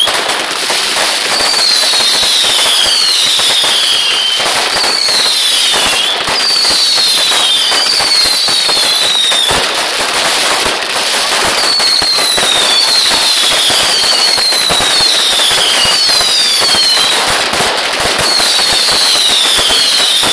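Fireworks barrage firing continuously: dense crackling and popping, with about ten whistles, each falling in pitch over about a second.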